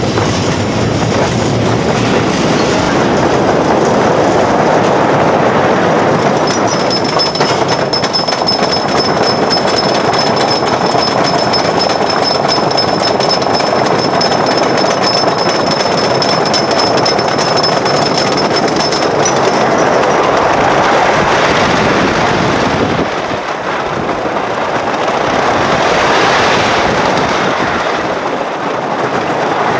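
Wooden roller coaster train running over its wooden track, heard from the front seat: a loud continuous rattle and rumble of the wheels. A faint steady high whine runs through the middle stretch, and the noise eases briefly near the end before picking up again.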